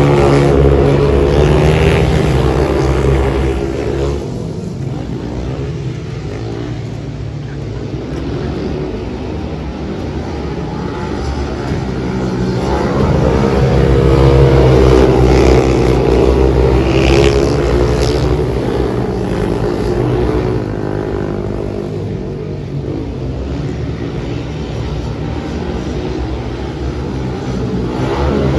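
Speedway motorcycles racing on a shale track, their engines swelling loud as the pack passes close at the start and again about halfway through, then fading as they go round the far side.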